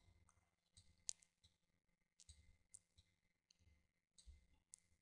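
Near silence with a few faint computer mouse clicks, the plainest one about a second in.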